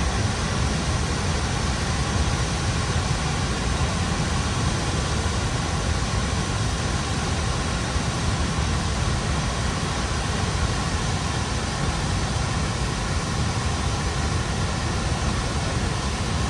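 Wailua Falls running high in flood after heavy rain, a steady roar of falling water with no change.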